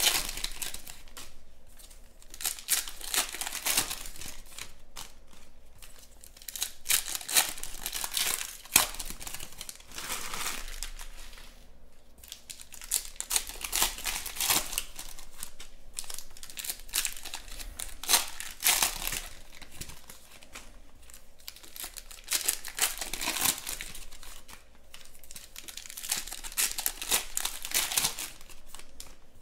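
Foil wrappers of 2020 Panini Chronicles Draft Picks football card packs being crinkled and torn open by hand, in short crackling bursts one after another.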